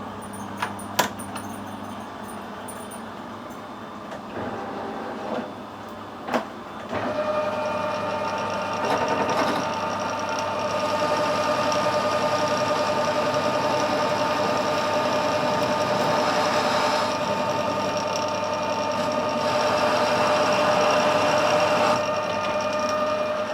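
Metal lathe running with a carbide-tipped turning tool cutting down the shank of a broken drill: a few sharp clicks over a steady motor hum, then from about seven seconds in a steady, ringing cutting sound that eases off just before the end.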